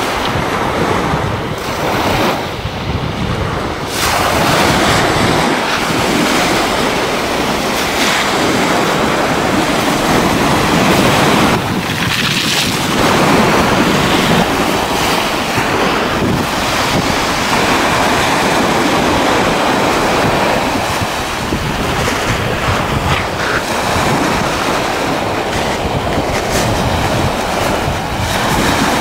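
Small sea waves breaking and washing up and back over a pebble beach, coming in repeated surges, with wind buffeting the microphone.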